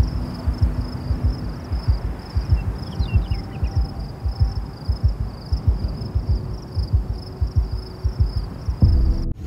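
Wind buffeting the microphone in irregular low gusts over a steady, high, slightly pulsing insect trill, with a few short chirps about three seconds in. The sound cuts off suddenly just before the end.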